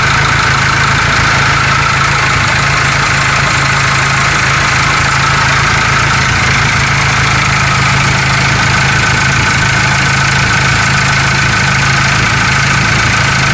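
Ford Ranger 3.0 diesel engine idling steadily and evenly, no longer shaking now that the sensor's wiring connector has been repaired. It cuts off abruptly at the end.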